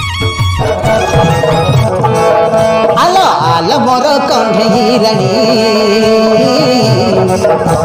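Indian folk-song music with tabla and held drone-like tones. A male voice comes in about three seconds in with a long, wavering sung note. A short rising chime jingle fades out in the first second.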